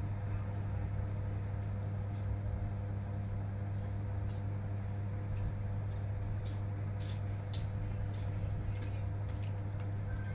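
A steady low hum with a few fixed tones, like a running fan or appliance, with faint scattered ticks over it.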